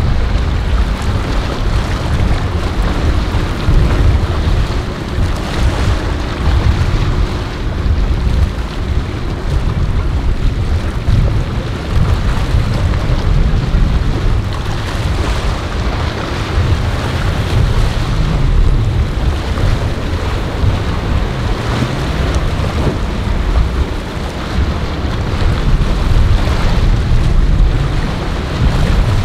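Wind rumbling on the microphone over breaking waves and the rushing wash of a flybridge motor yacht running through rough, choppy water, with a faint steady engine drone a few seconds in.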